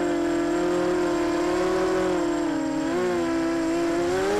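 Emax Nighthawk 250 FPV quadcopter's brushless motors whirring in flight: a steady hum whose pitch wavers, dips about three seconds in, then climbs near the end.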